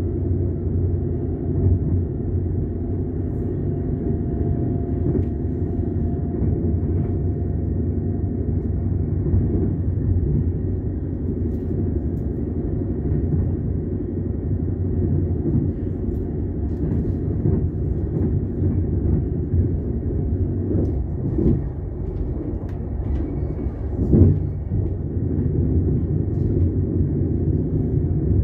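Passenger train running on the rails: a steady low rumble of the coach's wheels on the track, with occasional knocks over rail joints. Two sharper knocks come about three-quarters of the way through, the louder one near the end.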